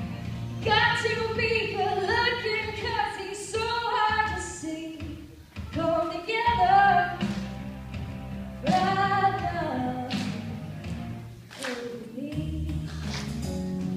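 A young girl singing a solo into a microphone over instrumental accompaniment.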